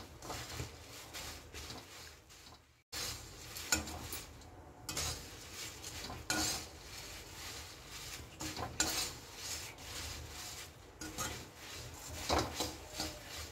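Metal spatula stirring and scraping dry puffed rice around a metal kadhai, with irregular scrapes against the pan and the rustle of the grains, as the murmura is roasted on low-to-medium flame until crisp. The sound breaks off briefly about three seconds in.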